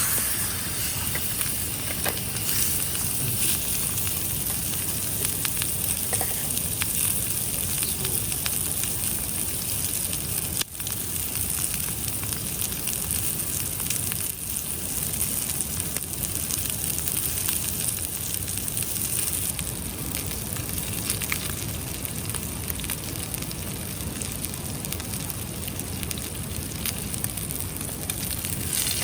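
Food sizzling in a skillet over an open wood fire, a steady hiss with scattered crackles from the fire.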